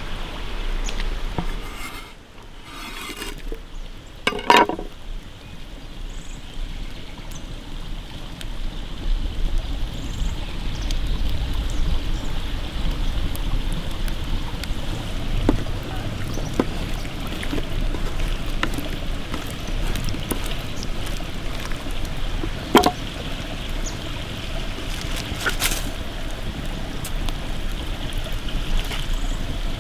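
Steady sound of running water, like a trickling stream, throughout. Over it come a few sharp knife taps on a wooden cutting board, the loudest about four seconds in and two more near the end.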